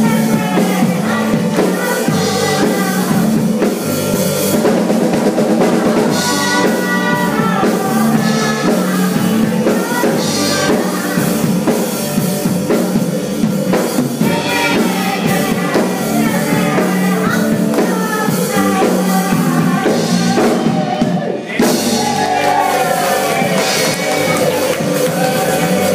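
Live band playing a country-rock song on drum kit, electric bass and electric guitar, with a woman singing lead at the microphone. Near the end the band stops for a brief break, then comes straight back in.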